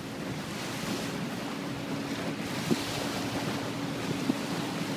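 Water taxi under way across open water: a steady rush of water and wind on the microphone over a faint, steady low engine hum, with a couple of light knocks.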